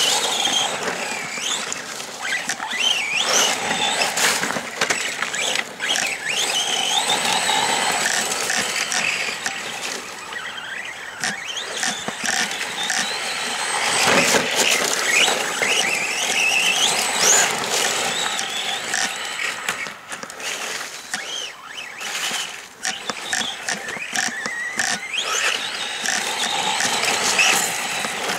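Arrma Senton 3S BLX radio-controlled short course truck driving over rough, wet dirt: its brushless motor whines, rising and falling in pitch again and again as the throttle is worked, with scattered clicks and knocks from the truck over the rough ground.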